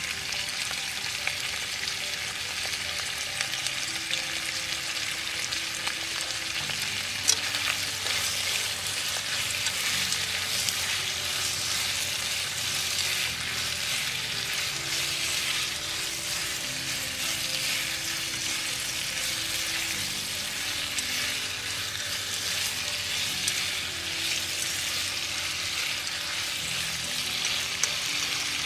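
Peas and tofu sizzling in a pan as they are stir-fried, with one sharp click about seven seconds in.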